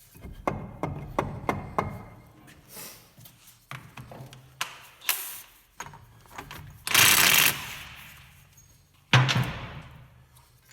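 Metal knocks and clinks from a hammer and a bolt-on hub puller as a rear hub that has cracked loose is worked off its taper. A quick run of sharp knocks comes early, then a noisy clatter of about a second around seven seconds in, then a single heavy metallic thud with ringing about nine seconds in.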